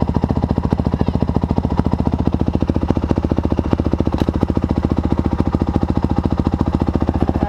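Honda CRF450R dirt bike's single-cylinder four-stroke engine idling steadily, close up, with an even, rapid beat and no revving.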